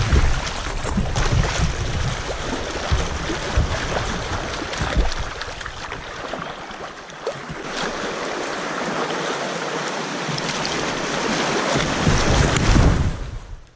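Creek water rushing and splashing against a kayak's bow through a riffle, heard from a bow-mounted camera with water and wind buffeting the microphone. The low rumble eases in the middle, swells again near the end, then cuts off suddenly.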